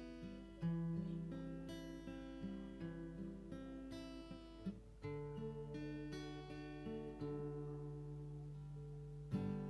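Background music: strummed and plucked acoustic guitar chords, changing every second or so.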